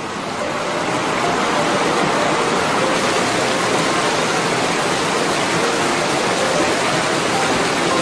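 Steady rush of water, swelling in over the first second and then holding level.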